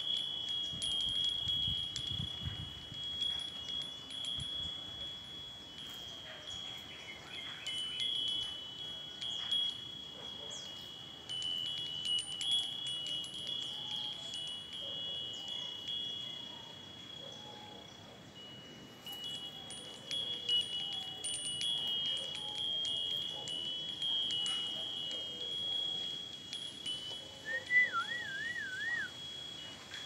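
Hanging wind chime of three metal bells ringing in the breeze: a steady high ringing with frequent light strikes, dying away briefly just past the middle before picking up again. A short warbling whistle sounds near the end.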